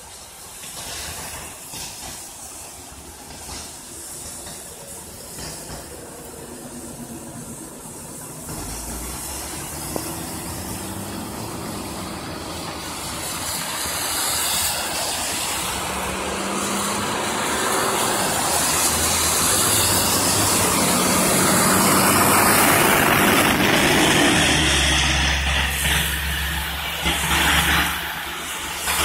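Garbage truck's diesel engine running under load as the truck pulls away and approaches, growing steadily louder until it passes, over the steady hiss of tyres on a wet road.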